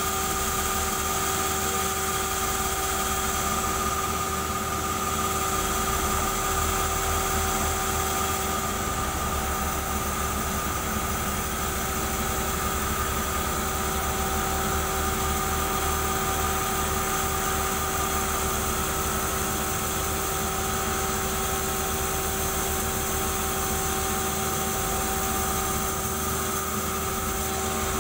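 Band sawmill running idle, not cutting: a steady machine hum with several constant whining tones.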